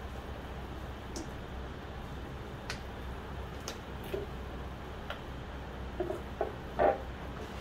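Mustard oil being poured from a small plastic bottle: sparse faint clicks and ticks from the bottle, with a few louder ones close together near the end.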